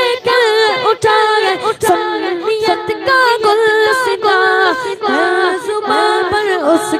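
Young boy's voice singing a manqabat (Urdu devotional song) unaccompanied into a microphone, in long wavering, ornamented notes.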